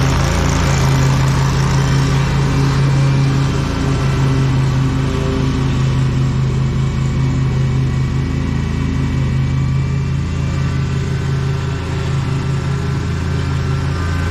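Lawn mower engine running steadily under load while mowing, with a slight dip in level about four seconds in.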